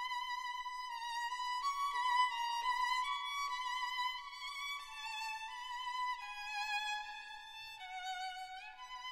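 Background music: a slow, high violin melody, held notes with vibrato and a few slides between pitches.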